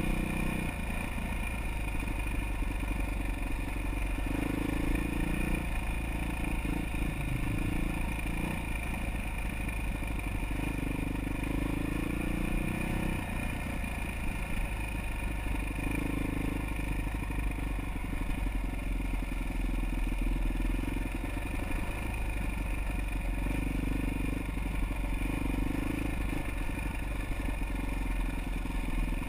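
Trail motorcycle engine running under load, its revs rising and falling in surges every few seconds as the throttle is worked, over a steady rattle from the bike on rough ground.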